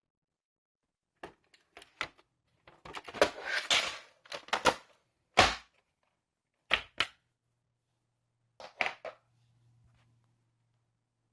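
Handling noises: irregular clusters of sharp clicks and knocks mixed with rustling, the loudest a single knock about five seconds in.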